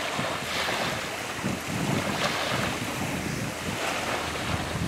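Wind buffeting the microphone in irregular gusts, over the wash of choppy lake water.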